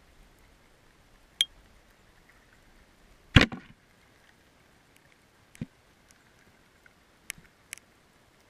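Sharp clicks and knocks picked up underwater over a faint steady hiss: a few single ones, the loudest about a third of the way in with a short ringing tail, then two close together near the end.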